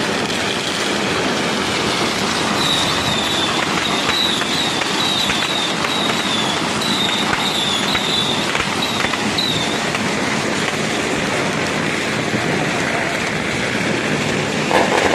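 Long strings of firecrackers crackling continuously, really loud, in a dense unbroken rattle. From about two to ten seconds in, a run of short high chirps sounds over the crackle.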